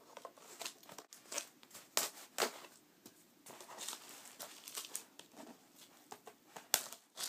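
Knife slitting the packing tape along the seam of a cardboard record mailer, with the tape ripping and the cardboard scraping. It comes as a run of short, irregular scraping and tearing strokes.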